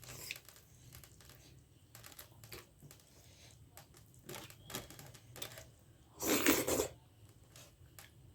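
Close-up eating sounds from a meal of dhido with nettle curry: soft chewing and small mouth and lip clicks, with a louder noisy sound lasting about half a second some six seconds in.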